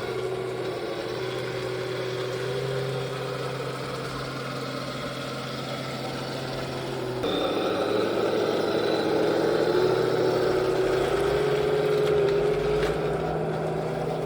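Henglong T-72 RC tank's sound unit playing a simulated tank engine, a steady drone that steps up suddenly louder and a little higher about seven seconds in, then slowly rises in pitch.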